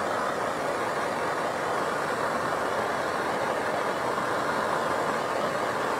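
Hand-held gas torch burning with a steady hissing flame, warming a cold, stiff rubber pulse tube to soften it.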